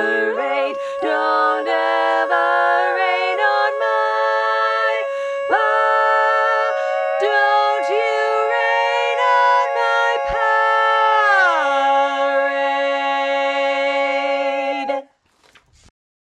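Barbershop chorus singing a cappella in close harmony. A few quick chord changes lead into a long held final chord, in which the lowest voice slides down partway through, before all parts cut off together near the end.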